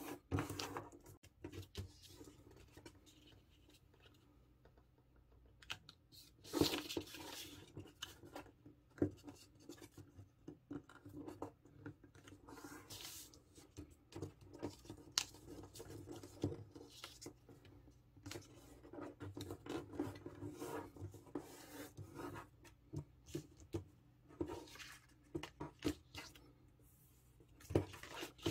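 A sheet of white A4 paper being folded and creased by hand: irregular rustling and crinkling with fingers sliding along the folds, louder about six and a half seconds in and again near the end.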